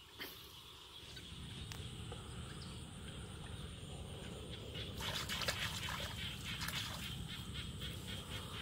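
Rustling and crackling of grass and dry straw as hands dig into a muddy paddy bank, loudest about five seconds in, over a steady low rumble.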